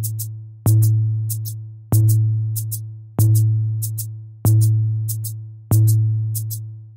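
Music with a slow repeating beat: a deep bass note hit about every second and a quarter, each fading out before the next, with light high ticks in between.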